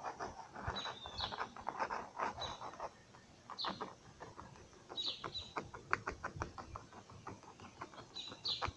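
Quick short strokes of a small metal tool scratching lines into a spray-painted sheet, coming in runs with a brief lull near the middle. Short falling bird chirps sound several times in the background.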